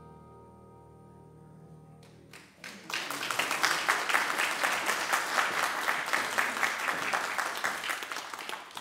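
The last chord of a handbell choir with piano rings and fades away. About two and a half seconds in, the congregation starts applauding, and the applause dies down near the end.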